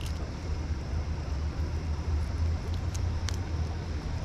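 A steady low rumble with a few small sharp clicks, two close together about three seconds in, as pliers work a hooked lure out of a small brown trout's mouth.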